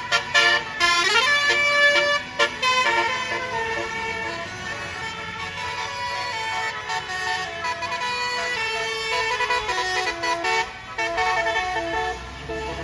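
Tour bus's multi-tone basuri air horn playing a telolet tune: several pitched notes sounding together and changing in steps, with a rising siren-like glide about a second in.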